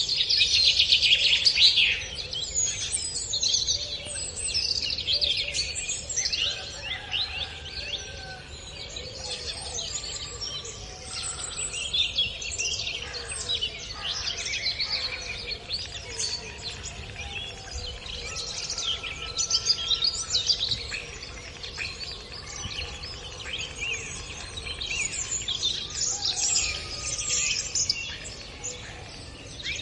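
Several songbirds chirping and singing at once, many overlapping short calls and trills, with a loud burst of song in the first two seconds. A faint low rumble of background noise runs underneath.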